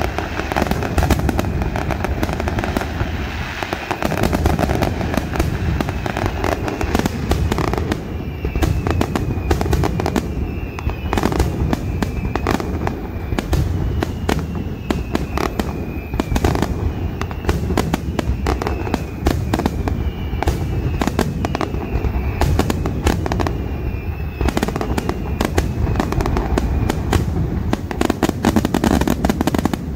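Fireworks display: a dense, continuous barrage of bangs and crackling from bursting aerial shells. From about a third of the way in, repeated whistles that dip slightly in pitch ride over the bangs.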